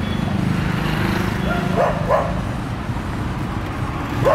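A dog barking, two quick barks about halfway through and another starting right at the end, over the steady low rumble of street traffic.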